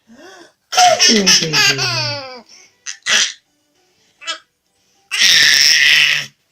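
A baby laughing in bursts while a man sneezes loudly for her; a long, loud sneeze comes about five seconds in.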